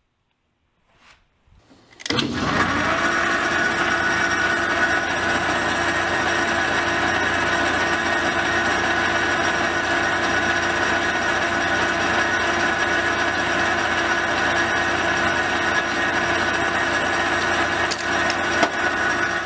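Small electric motor running steadily, spinning a miniature glass vacuum tube in a chuck while a hand-held metal blade is pressed against the glass to score it for cutting open. It starts about two seconds in and cuts off just before the end.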